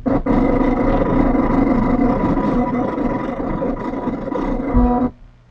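Cricut electronic cutting machine running a cut: its motors whir steadily as they drive the mat and blade carriage through green cardstock, then stop abruptly about five seconds in.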